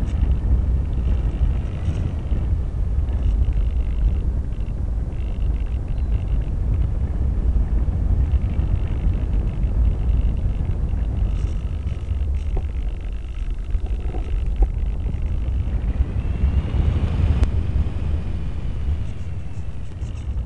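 Wind rushing over the on-board camera microphone of a Multiplex Easy Star RC plane in flight, a steady low rumble, with the faint hum of its electric pusher motor and propeller. Near the end a whine rises and falls briefly.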